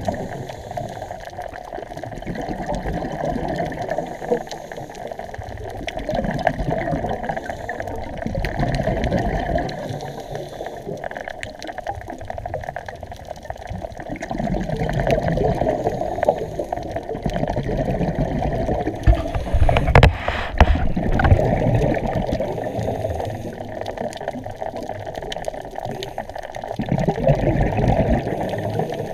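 Muffled underwater rushing and bubbling that swells and fades every few seconds, as a scuba diver's exhaled air bubbles out of the regulator. A few sharp knocks come about two-thirds of the way through.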